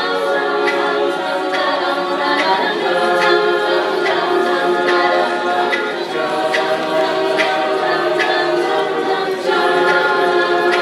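An a cappella group singing held chords without words, over a steady vocal-percussion beat about once a second.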